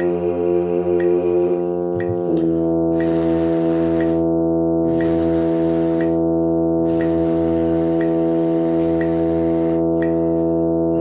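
Sustained accompaniment tones with a metronome clicking about once a second. Brass mouthpieces are buzzed over it in the first two seconds and again near the end. The held tones change to a new pitch about two seconds in.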